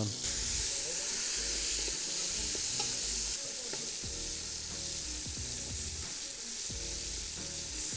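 Cubes of beef brisket sizzling in hot oil in a large stainless steel pot as they are seared on high heat and stirred with a wooden spoon. The sizzle is louder for the first three seconds or so, then eases a little.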